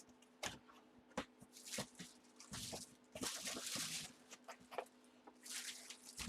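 Packaging being handled: crinkling and rustling, with a few light clicks and knocks in the first two seconds and longer stretches of crinkling in the middle and near the end.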